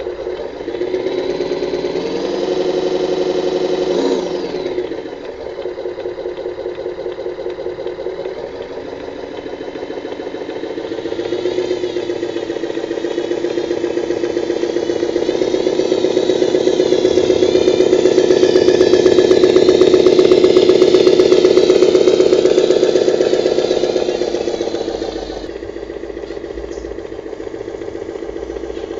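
Truck engine sound for a miniature RC Hino 500 truck driving off. It revs up for a few seconds and drops sharply back near the start, then idles, builds slowly to a loud high rev about two-thirds of the way through, and falls back to idle.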